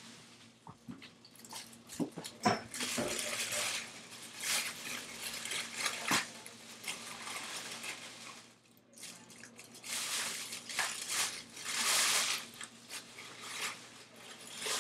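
Small metal hand tools clinking and clattering, with bursts of rustling, as a box of soldering tools is rummaged through. A faint steady hum runs underneath.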